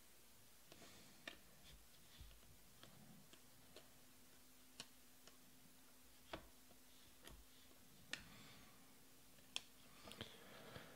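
Faint, irregular clicks of glossy Panini Prizm baseball cards being flipped and slid off a stack in the hands, one card at a time.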